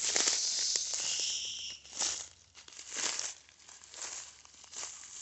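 Footsteps crunching through dry leaves and brush: a loud rustle for the first two seconds, then single crunching steps about once a second.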